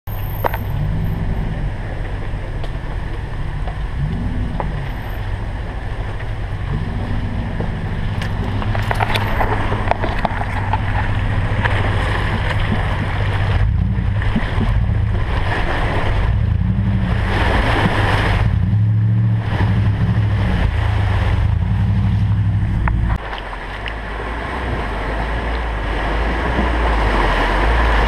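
A 4WD's engine running at low speed with revs rising and falling as it drives down a dirt track and into a shallow creek, water splashing and sloshing around the wheels. Near the end, a sudden change to water rushing and splashing as a Nissan Pathfinder pushes a bow wave through the creek, with wind noise on the microphone.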